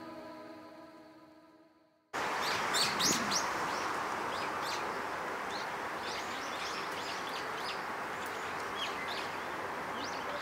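Chiming music notes die away over the first two seconds. Then the sound cuts abruptly to outdoor ambience: a steady background noise with many small birds chirping in quick, short calls.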